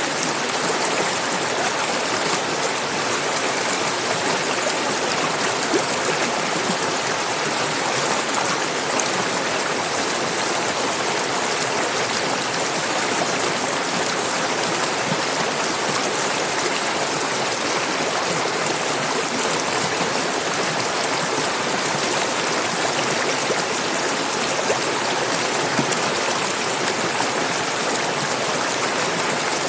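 Clear mountain river running over rocks: a steady, unbroken rush of flowing water.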